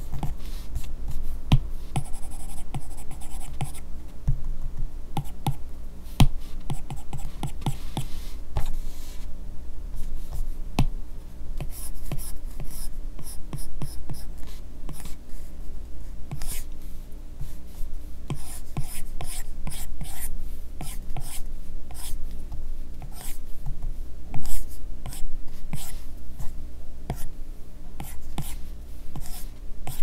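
A bare stylus nib drawing on an iPad Pro screen covered with a paper-texture film: many quick, scratchy short strokes and taps, several a second, busiest in the second half.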